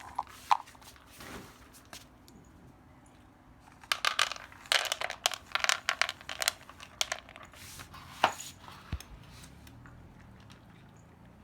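Cat food being served into bowls: a busy run of clicks, scrapes and rustles about four to seven seconds in, then a single sharp click and a dull thump a little later.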